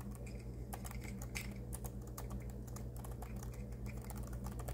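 Irregular light clicks and taps, several a second, over a steady low electrical hum.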